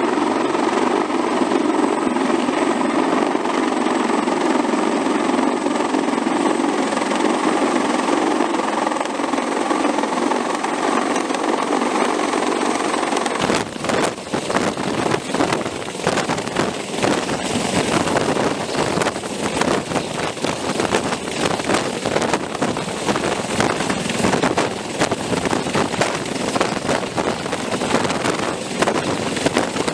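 Sikorsky CH-53E Super Stallion heavy-lift helicopter, its turboshaft engines and rotor making a steady drone with a few steady whining tones. About 13 seconds in this gives way to rapid, ragged buffeting across all pitches as the helicopter hovers low, its rotor wash battering the microphone.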